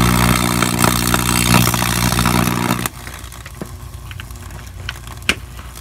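Mains-voltage arcing across the salted, water-soaked circuit board of an early-2000s RCA CRT television: a loud electrical buzz with crackling that cuts off suddenly about three seconds in. A few scattered ticks follow, then a sharp pop near the end.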